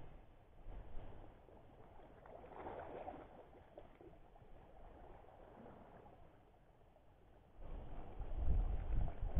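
Wind rumbling on the microphone, strong for the last two seconds or so, with quiet lapping of calm sea water in between.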